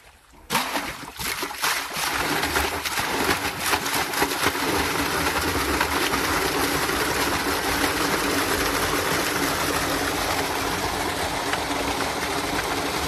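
Water surging out of a 5 HP pump set's 4-inch delivery hose into a brick tank as the pump gets going: sputtering splashes begin about half a second in and build within a couple of seconds into a steady, loud gush of pouring, splashing water.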